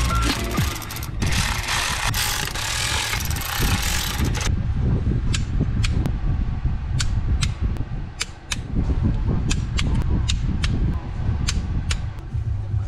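A socket ratchet being worked on a bolt, its pawl giving short, sharp clicks a few times a second from about four seconds in. Before that a steady hiss.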